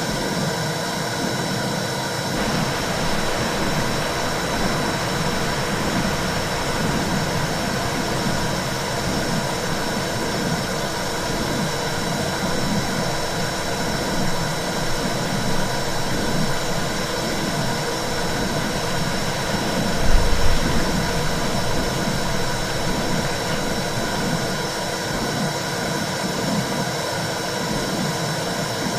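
Womb sound for soothing a baby: a steady, low rushing whoosh that pulses rhythmically, with a faint steady high tone over it. A brief low bump about twenty seconds in.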